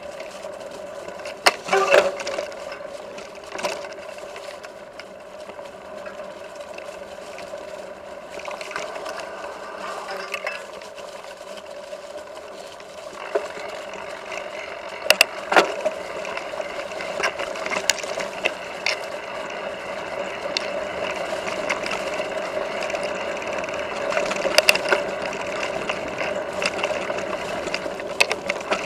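Mountain bike ridden over a rough dirt trail: continuous rattling and clatter from the bike, broken by sharp knocks from bumps, the loudest about two seconds in and again around halfway.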